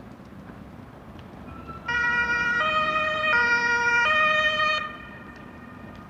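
Emergency vehicle's two-tone siren sounding briefly: two low-high cycles, each tone held under a second, starting about two seconds in and cutting off suddenly after about three seconds. Steady street traffic noise runs underneath.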